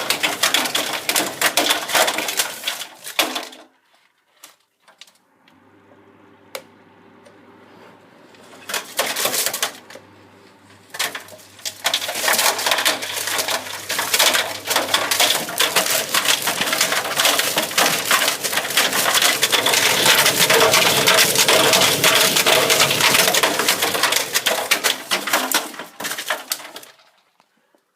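Tumble dryer drum turning with loose hard odds and ends inside, a bottle and a lid among them, clattering and rattling against the drum. The clatter breaks off about four seconds in and comes back with a low hum. It grows dense and continuous as the drum speeds up, then stops suddenly near the end.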